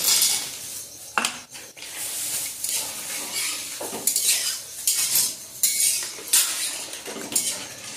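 Long steel ladle stirring milk in an aluminium kadai, scraping and clinking against the pan in irregular strokes about once a second, with a sharper clink about a second in.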